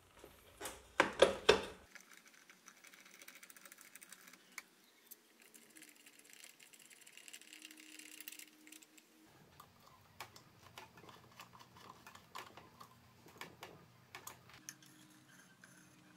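Light metal handling sounds as a steel muffler tube and its bracket are fitted and screwed onto a brushcutter's exhaust: a couple of louder knocks about a second in, then scattered small clicks, ticks and soft rattling.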